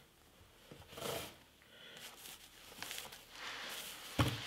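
Soft rustling of white protective wrapping being handled and pulled open around a turntable, with a short dull knock near the end.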